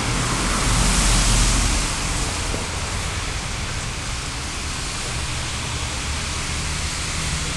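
Steady rushing hiss of aquarium water with aeration bubbling.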